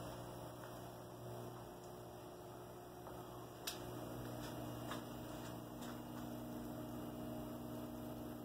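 Low, steady electrical hum from original late-1950s electrical switchgear, with a few faint clicks near the middle.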